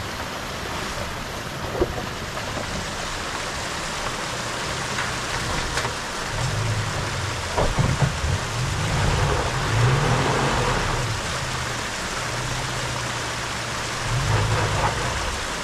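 A creek rushing steadily. From about six seconds in, a pickup truck's engine runs at low revs, rising and falling as the truck crawls through the rocky creek crossing, with a few sharp knocks.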